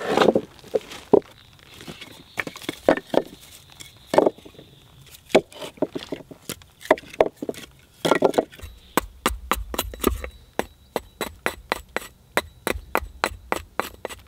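Tool blows on wood: a few irregular heavy strikes, then from about nine seconds in a quick, even run of sharp strikes, about three a second.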